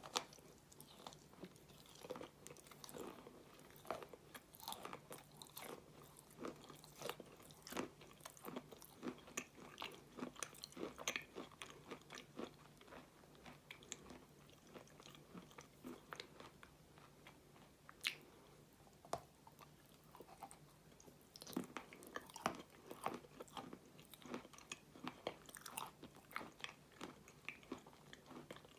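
A person eating ice cream: repeated biting and chewing mouth sounds, short wet clicks coming in dense runs, with a quieter stretch in the middle broken by a few single clicks.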